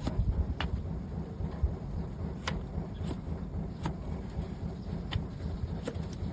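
Hoof-trimming tools cutting horn from a donkey's overgrown, split hoof: sharp clicks at uneven intervals, roughly one a second, over a steady low rumble.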